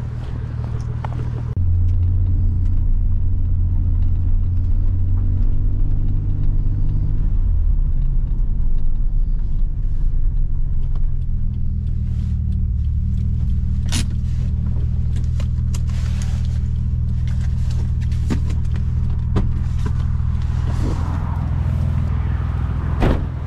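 Nissan 300ZX twin-turbo's 3.0-litre V6 running, heard from inside the cabin as a steady low hum that gets louder about a second and a half in and shifts in pitch around eight seconds in. A few sharp clicks over it, one near the end.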